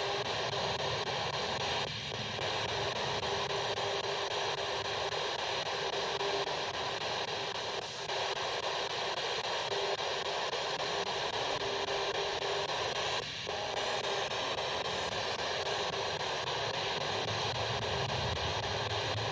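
Steady radio-like static hiss from a ghost-hunting device, with three brief dips about 2, 8 and 13 seconds in.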